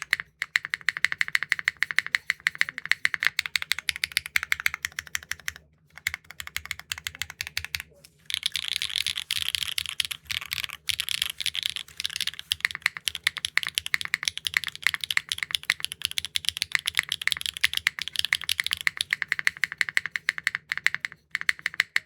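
Fast, continuous typing on a Neo65 Core Plus mechanical keyboard with HMX linear switches, an aluminum plate, no foam and GMK keycaps: a rapid run of clacky keystrokes that pauses briefly twice and stops just before the end.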